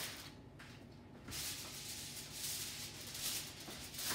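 Aluminium foil crinkling and rustling as it is pressed and folded down over a pan, starting about a second in.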